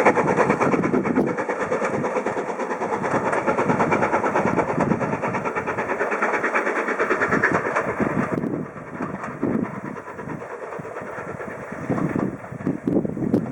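Heritage steam train passing close at speed, with a fast, dense rhythm of beats. It cuts down sharply about eight seconds in to a quieter, uneven sound as the train moves away.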